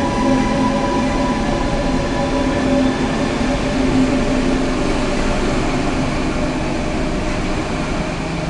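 Metro train running in the station: a steady rumble with a whine of several steady tones on top, the tones fading from about halfway through.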